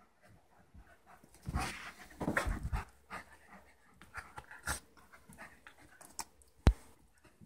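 Dogs play-fighting: panting and mouthing with irregular scuffling bursts, and one sharp knock about two-thirds of the way in, the loudest sound.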